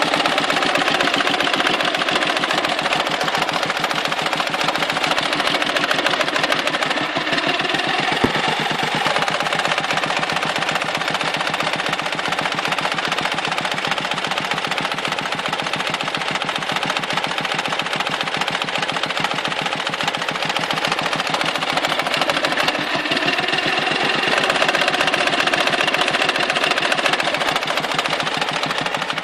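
Dnepr flat-twin motorcycle engine running with a rapid, regular knock, its revs rising and falling twice. It is the periodic knock that the owner ties to lost power and petrol spitting back out of the carburettor; it goes away at high revs or just before the engine stalls.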